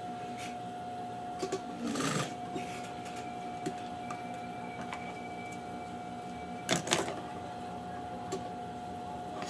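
Electric sewing machine running steadily as it stitches pleats into a fabric strip, with two brief louder bumps, about two seconds in and again near seven seconds.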